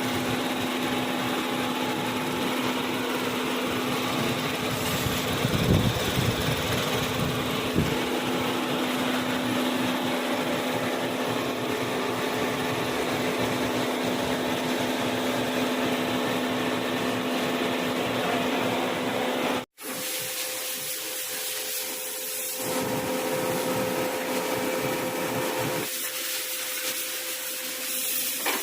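Steady drivetrain and road noise of a 2021 Genesis under way, with a constant hum running through it that the mechanic traces to the differential. The sound breaks off abruptly about two-thirds through and resumes with the hum at a higher pitch.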